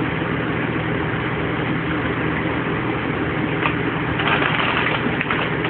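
A steady low machine hum with no change in level, and a few faint short sounds over it around the middle.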